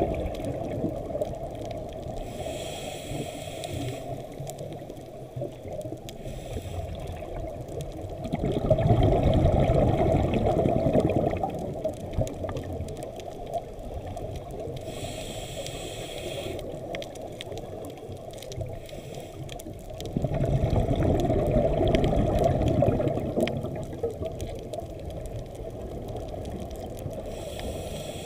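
A scuba diver breathing slowly through a regulator underwater: three short hissing inhales, and two long bubbling exhales of about three seconds each that are the loudest sounds, over a steady low wash of water.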